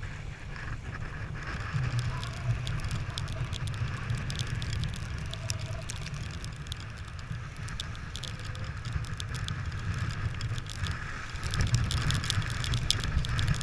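Wind buffeting the camera microphone on a sailboat under way, with water rushing along the hull and scattered sharp ticks that grow denser near the end.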